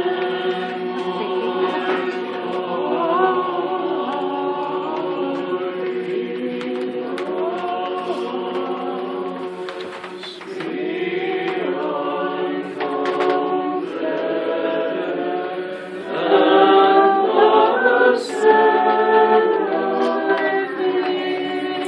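A choir of many voices singing together in long held notes, swelling louder about two-thirds of the way through.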